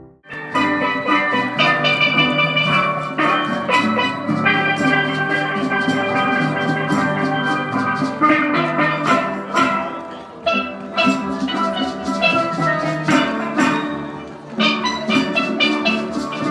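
Instrumental background music with bright struck melodic notes over a bass line and drums, starting abruptly a moment in.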